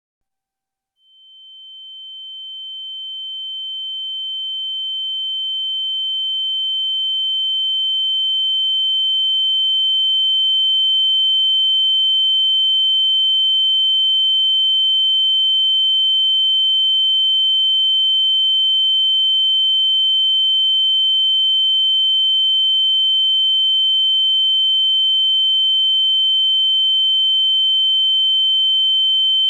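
Ear-ringing (tinnitus) sound effect: a single steady high-pitched sine tone that starts about a second in, fades up gradually over about ten seconds, then holds at a constant level.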